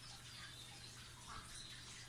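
Quiet background: a low steady hum with a few faint, short chirps, like distant birds.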